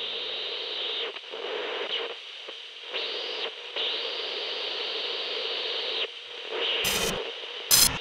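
Two-way radio static: a narrow-band hiss keyed on and off in several stretches, one lasting about two seconds. Near the end come two sharp, loud knocks.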